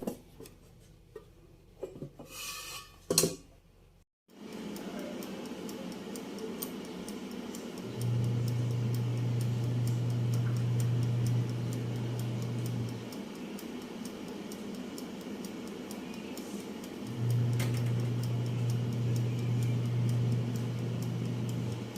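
Air fryer running: a few clicks, then the fan starts a few seconds in and runs steadily, with faint regular ticking like a dial timer. A low hum comes on about eight seconds in, stops around thirteen seconds, and returns around seventeen seconds.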